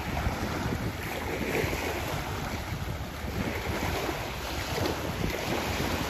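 Small waves washing onto the shore in a hiss that swells and fades, with wind buffeting the microphone in a low rumble.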